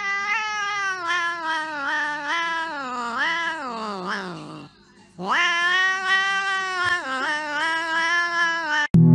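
Domestic cat yowling: two long drawn-out calls whose pitch wavers up and down, with a short break about halfway through.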